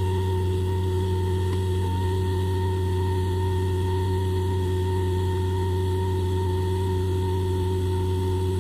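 TIG welding a stainless steel pipe joint: a steady electric buzz and whine from the arc and welding machine over a constant low hum.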